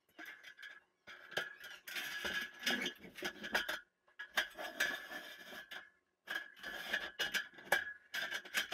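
An aluminium ladder being handled and set up: a run of light metallic clanks, knocks and rattles, broken by a few short pauses.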